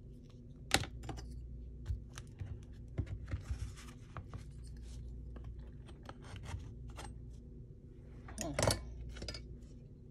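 Paper and craft tools being handled on a table: scattered light clicks, taps and paper rustles, with a sharper click about a second in and a short scraping rustle near the end.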